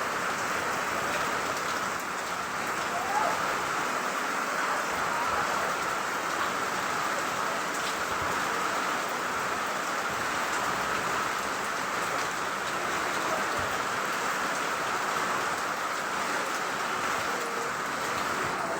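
Rain falling steadily, an even patter with no breaks.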